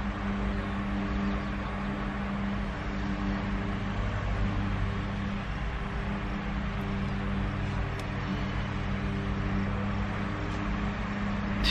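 Steady hum of a stationary car with its engine and ventilation running, heard inside the cabin, with a few steady low tones.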